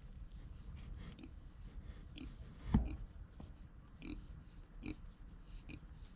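Kune Kune pig eating bananas: short chewing and smacking sounds about once a second, with one louder knock a little under three seconds in.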